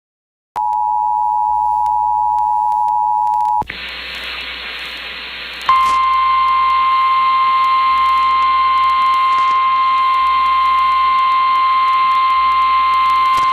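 Emergency Alert System attention tones. A steady two-tone alert signal sounds for about three seconds and cuts off. After a moment of hiss, a single steady weather-radio warning tone comes in over faint static.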